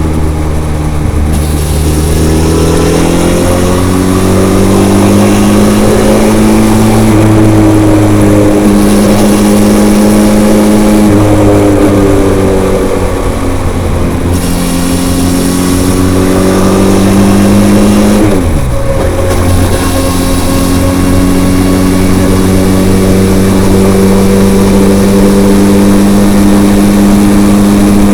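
Benelli TRK 502's parallel-twin engine through its stock, unmodified exhaust while riding, its pitch rising and falling with throttle and gear changes. About two-thirds in the note drops sharply and comes straight back up.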